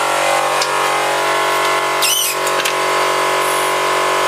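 A machine runs steadily with an even, multi-toned hum, and a short high-pitched squeak about two seconds in.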